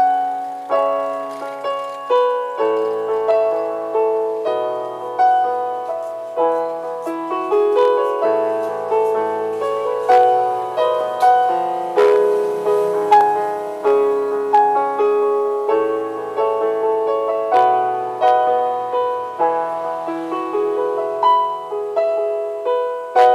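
Electronic keyboard played two-handed on a piano voice: a tune of struck chords over bass notes, each note fading after it sounds. The keys are being played to test them after the keyboard's buttons were repaired.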